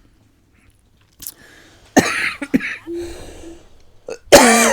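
A woman coughing: a hard cough about two seconds in with a few short coughs after it, then a louder, voiced cough near the end.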